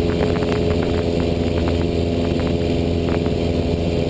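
Cessna 172's piston engine and propeller droning steadily in climb, heard from inside the cockpit.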